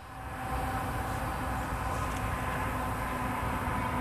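Canadian Pacific freight train's diesel locomotives running in the distance: a steady low rumble with a faint, even engine hum.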